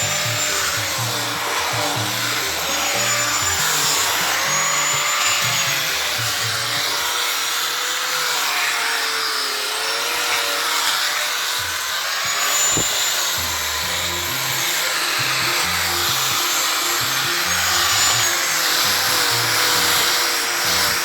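Electric grinder (gerinda) working a wooden chair, its motor whine wavering up and down as it is pressed on the wood and eased off. Background music plays underneath.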